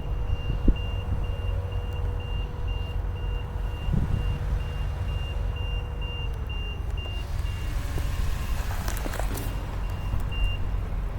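Steady low rumble of an idling vehicle, with a high electronic beep repeating about twice a second that stops near the end. A rising rush of noise swells about eight to nine seconds in.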